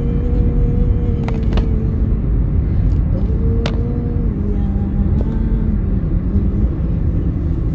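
Steady low rumble of a car on the move, heard from inside the cabin, with a droning engine tone that shifts pitch a few times. A few sharp clicks come through, two close together about a second in and one near the middle.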